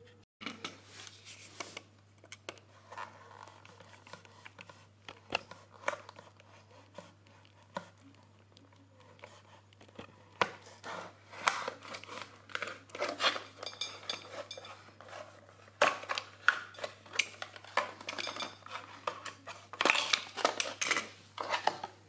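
A small plastic box being cut to shape and handled: irregular sharp snips, clicks and scratchy crackles of thin plastic, sparse at first and busiest in the second half.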